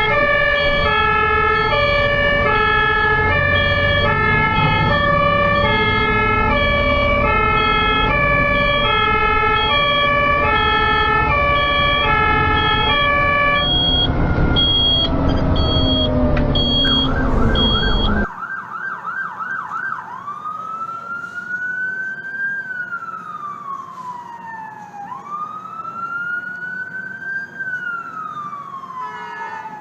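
Ambulance sirens. First a two-tone hi-lo siren alternates steadily between two pitches over loud road and engine noise, then changes to higher tones and a brief fast warble. About 18 seconds in it cuts off abruptly and a quieter wailing siren takes over, rising and falling slowly about every five seconds.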